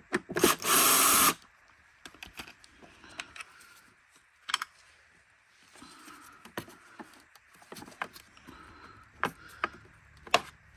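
A power screwdriver runs in a short burst about a second in, backing out screws on a vacuum cleaner's plastic housing. After that come faint, scattered clicks and taps of screws and plastic parts being handled.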